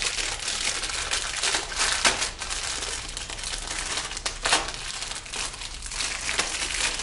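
Plastic wrapper crinkling as a printer ribbon cartridge is unwrapped by hand, a dense irregular crackle with a few sharper snaps.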